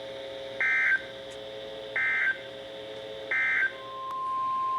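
Emergency Alert System end-of-message signal: three short bursts of SAME digital data tones, about 1.4 s apart, over a faint steady hum. Near the end a steady single-pitch alert tone fades in, the attention tone that opens the next warning.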